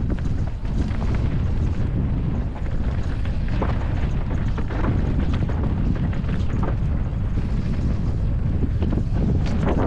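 Wind buffeting the microphone of a helmet-mounted GoPro as a mountain bike rolls downhill, a steady low rumble, with scattered clicks and rattles from the bike over the loose, rocky dirt trail.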